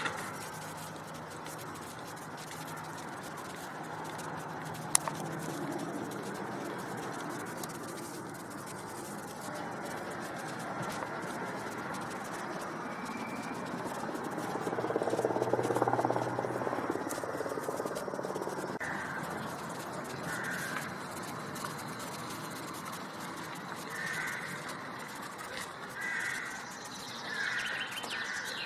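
Crows cawing: a run of short calls in the last third, over steady street ambience. A single sharp click about five seconds in, and a louder low swell around the middle.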